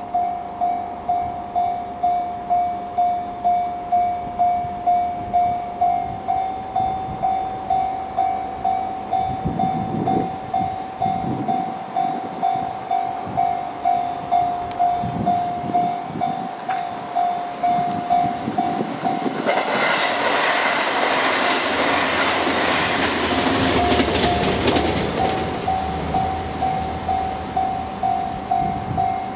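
Japanese level-crossing warning bell ringing in steady repeated strokes, about three every two seconds. About twenty seconds in, a JR East HB-E210 hybrid railcar passes at speed for some six seconds, its rumble and wheel noise drowning the bell, which keeps ringing after it has gone.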